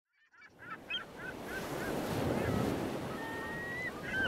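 Seagulls calling over steady surf and wind, fading in at the start: a run of short, bending cries in the first two seconds, then one long drawn-out call about three seconds in.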